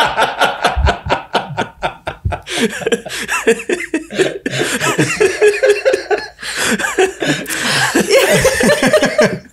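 People laughing hard: a quick run of short laugh pulses at first, then longer rising and falling laughs that carry on with brief pauses.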